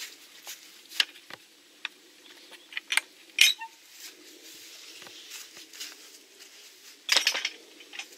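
Sharp metallic clinks and knocks from the latch of a wooden field gate being opened and shut. The loudest knock, about three and a half seconds in, rings briefly, and a quick cluster of clatters comes just after seven seconds.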